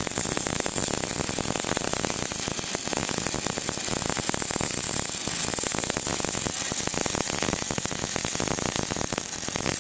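Electric arc welding: the arc crackles and sputters steadily and densely, with a faint steady high whine over it.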